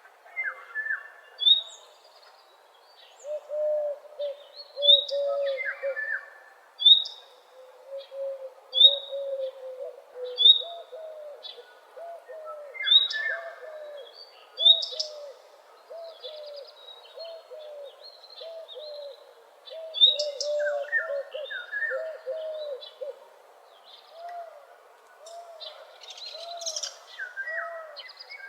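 Dawn chorus of several songbirds: one bird repeats a low, arched note about twice a second throughout, while others give short high chirps about once a second and brief trills.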